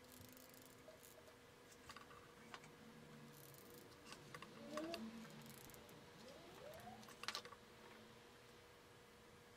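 Near silence broken by faint small clicks and taps as thin steel wire arms on a copper rod are handled and a hot glue gun is worked on it. The sharpest tap comes about seven seconds in, over a faint steady hum.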